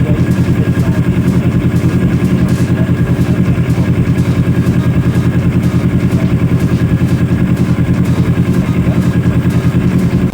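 Kawasaki ER-6n's parallel-twin engine idling steadily with an even, fast exhaust pulse, run so the stator coil's charging output can be checked with a multimeter.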